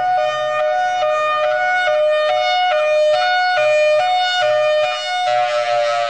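Federal Signal Thunderbolt outdoor warning siren sounding the high-low signal, used for fire emergency: it switches between two tones about two or three times a second. About five seconds in, the switching stops, a hiss comes in and the tone starts sliding down as the siren shuts down.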